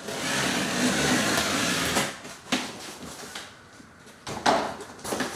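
Cardboard parts box being handled and slid around: steady scraping and rustling for the first two seconds, then a couple of sharp knocks.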